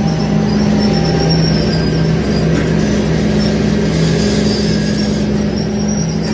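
CFS Koppens PRM 900 M breading machine running: its electric drive and stainless wire-mesh conveyor belt make a steady mechanical noise, with a low hum that wavers back and forth between two pitches.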